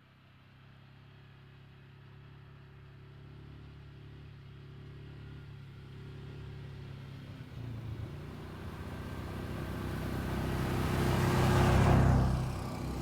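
Utility ATV's four-stroke engine running and growing steadily louder as the quad approaches, with a brief dip in the note about eight seconds in, loudest about twelve seconds in, then a short drop near the end.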